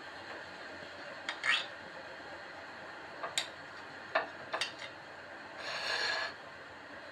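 A glass plate clinking a few times against a stone countertop, then scraping across it for under a second near the end as it is turned.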